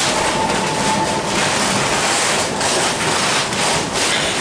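Nelson Electric Tramway car 23, a 1906 John Stephenson-built streetcar, running along the track, heard from inside the car: a steady rumble and rattle of wheels on rail and the wooden body, swelling and easing. A faint high whine sounds briefly near the start.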